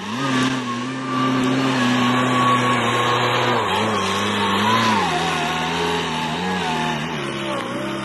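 Rhino RS50-S skid steer's engine running hard as the machine pushes dirt and brush with its bucket. It speeds up at the start, holds, then dips in pitch and recovers several times in the second half as the load comes and goes.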